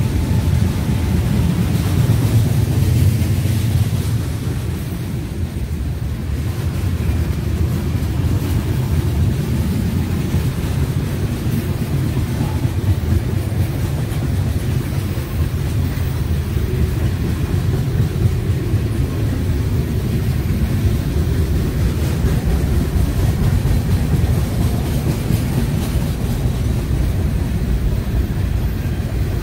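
Freight train boxcars and covered hopper cars rolling past: a steady low rumble of steel wheels on rail.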